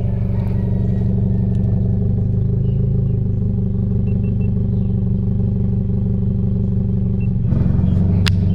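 Subaru BRZ's flat-four engine running steadily while driving. About seven and a half seconds in, the engine note shifts and gets louder, and a sharp click follows near the end.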